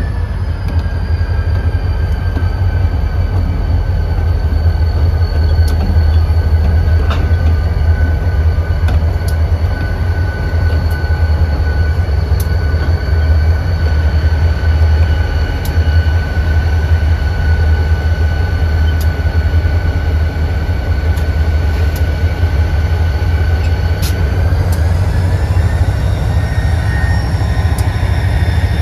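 A freight train's EMD two-stroke diesel locomotives passing close by: a loud, steady low engine rumble with a steady high whine over it and scattered sharp clicks.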